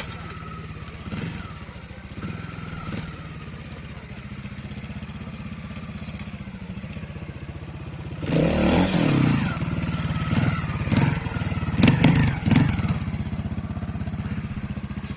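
Trials motorcycle engine running at a low idle, then revved hard with rising pitch about eight seconds in and given several short, sharp throttle bursts while the bike climbs the rocks.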